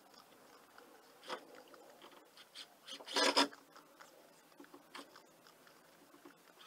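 Intermittent small handling and work noises: scattered clicks and scrapes, with a louder scraping rustle about three seconds in.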